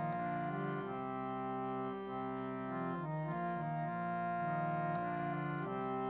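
Harmonium playing sustained chords that change every second or two, with no voice over it.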